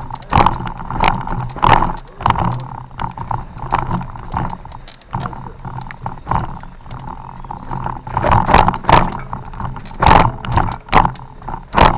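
Bicycle clattering and rattling over tree roots on a steep forest descent, a rapid irregular series of knocks and jolts over a steady low rumble.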